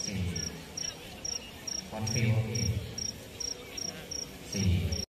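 A cricket chirping steadily: short, high chirps at one pitch, evenly spaced at about two and a half a second. Faint voices sound in the background.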